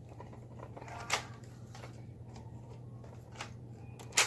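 A few sharp plastic clicks and knocks from a toy Nerf dart blaster being handled and fired: one about a second in and a louder one at the very end, over a steady low hum.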